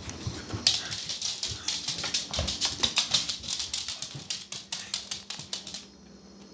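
Excited pug scrambling about on a hardwood floor: a fast run of sharp clicks from its claws, with snorting, stopping abruptly near the end.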